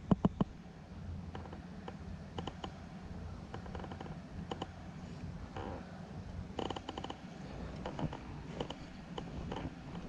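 Irregular light clicks and ticks, some in quick little clusters, over a steady low background rumble.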